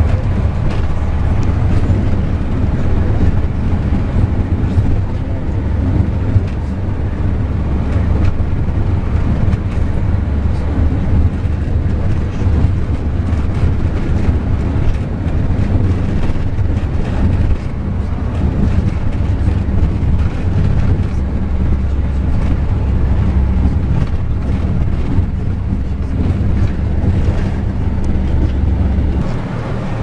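Tour bus running along a town street, heard from inside the cabin: a steady low engine and road rumble that eases slightly near the end.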